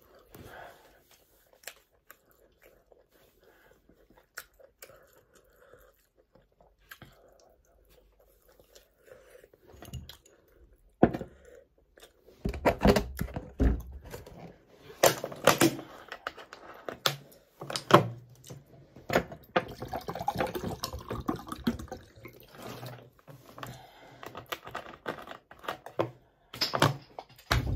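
Close-up chewing and mouth sounds of eating, faint for the first ten seconds. Then a glass is set down on the table with sharp knocks, a plastic water bottle is handled, and water is poured into the glass, with another loud knock near the end.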